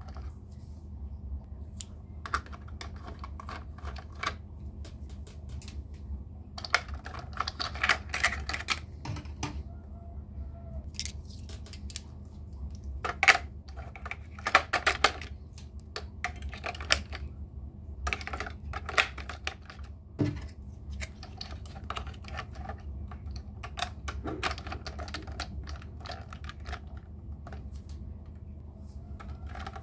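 Irregular light clicking and clattering of small hard plastic toy pieces being handled, in short bunches, over a low steady hum.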